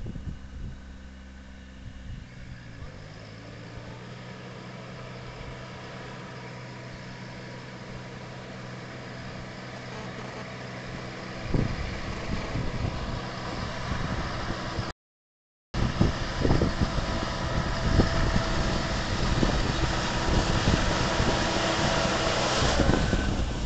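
Kubota B2420's 24 HP three-cylinder diesel engine running steadily with the air-blast sprayer's fan blowing. It grows louder as the tractor comes closer. The sound cuts out for under a second about fifteen seconds in.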